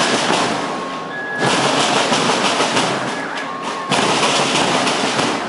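A school marching band's drum section, bass drums and snare drums, drumming a dense, rapid rhythm. It gets louder about one and a half seconds in and again about four seconds in.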